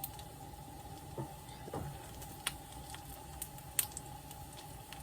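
Plant-based sausage frying in a pan with a little olive oil: a faint, steady sizzle with scattered pops and crackles.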